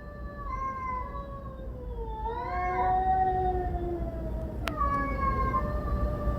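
Stray cats yowling in long, drawn-out caterwauls that waver up and down in pitch, two voices overlapping at times: the shrill cries of street cats in the city. A single sharp click sounds about halfway through over a steady low background rumble.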